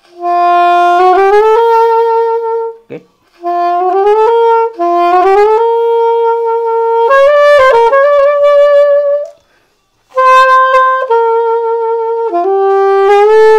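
Saxophone playing short phrases in chromatic glissandos, sliding up in quick half-steps into held target notes with slight vibrato. Near the end a phrase slides back down.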